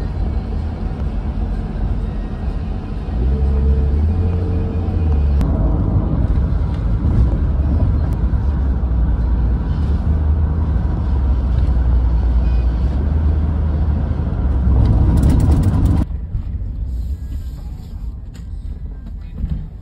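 Road and engine noise inside a moving taxi's cabin: a steady low rumble with tyre hiss. It turns quieter after a sudden change about sixteen seconds in.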